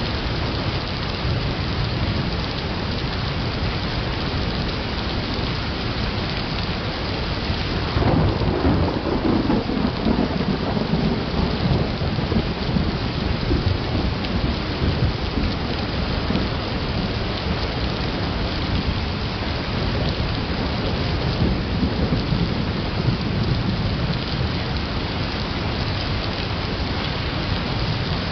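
Steady rain falling through a thunderstorm. A rumble of thunder breaks in about eight seconds in and dies away over several seconds, and a weaker rumble follows later.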